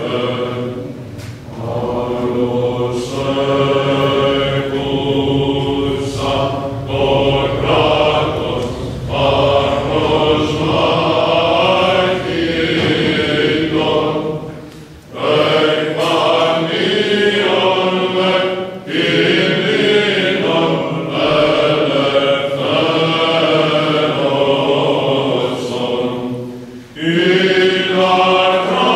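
Greek Orthodox Byzantine chant sung by a group of voices in a church, in long held phrases with short breaks about halfway through and near the end.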